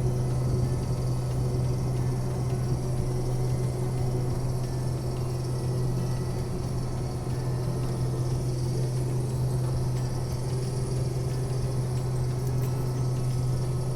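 Case IH 2388 combine running steadily, heard from on board: an even, constant low drone with a steady hum.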